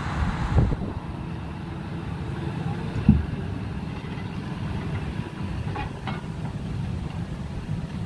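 John Deere tractor's diesel engine running steadily as it works a mounted reversible plough. Wind buffets the microphone early on, and there is a sharp low thump about three seconds in.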